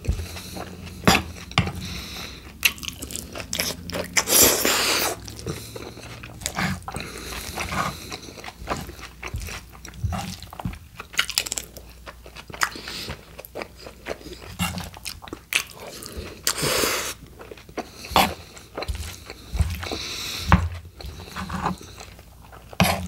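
Close-miked eating of a steak burrito's filling: chewing and crunching with wet smacks and sharp mouth clicks. Longer crackly bursts come about four seconds in and again near seventeen seconds, as the metal spoon scoops more filling.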